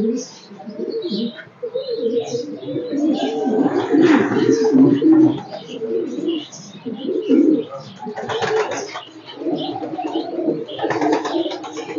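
Domestic pigeons cooing in a loft, several birds overlapping in a continuous low, wavering coo, with short high chirps scattered through and a couple of brief rustling noises about two-thirds through and near the end.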